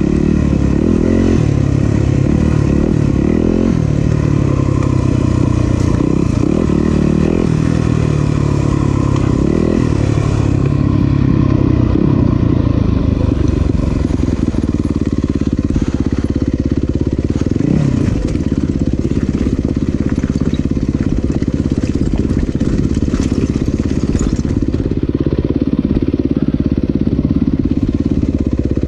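2019 Yamaha YZ250FX dirt bike's 250 cc single-cylinder four-stroke engine running, revving up and down with the throttle over the first dozen seconds or so, then running more evenly.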